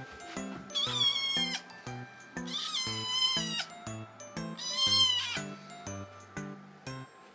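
Scottish Fold × British Shorthair kitten meowing three times, high and about a second each, begging for milk. Background music with a steady beat plays underneath.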